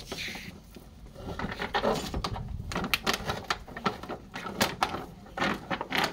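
Thin clear plastic jar crackling and clicking as it is gripped and handled on concrete, a string of irregular sharp clicks.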